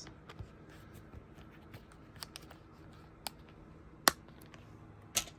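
Scattered light clicks and taps from handling a small leather wallet and the plastic cards kept in it, with two sharper, louder clicks about four seconds in and near the end.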